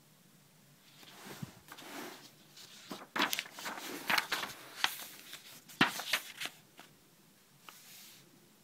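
Paper pages of a sketchbook being turned and handled: a run of rustles and crisp flicks starting about a second in, busiest in the middle, with a faint last rustle near the end.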